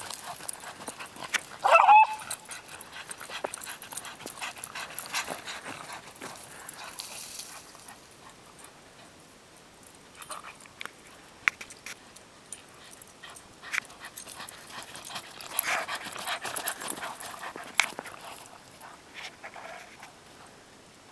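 A dog gives one short, loud bark about two seconds in while playing in snow. Faint scattered clicks and rustles of movement through snow and brush follow.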